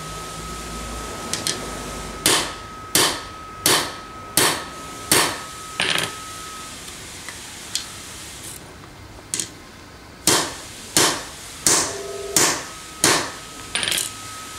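A hammer strikes a steel pin punch set in a nose-changer riveting tool, driving out the rivets of a chainsaw guide bar's replaceable sprocket nose. There are two runs of six sharp metallic blows, about 0.7 s apart, with a pause between them.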